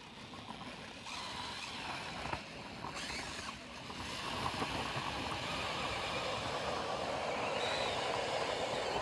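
Ice auger boring a test hole through pond ice to check its thickness: a steady grinding noise that builds gradually and stops abruptly at the end.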